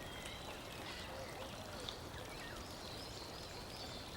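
Faint steady background hiss, like running water, with a few faint chirping glides through it.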